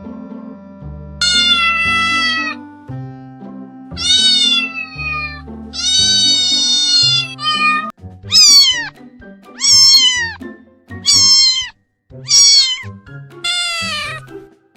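Domestic cat meowing repeatedly, about eight meows over steady background music. The first few meows are long, about a second each. From about eight seconds in they come as shorter calls, roughly one every second and a half, each sliding up and then down in pitch.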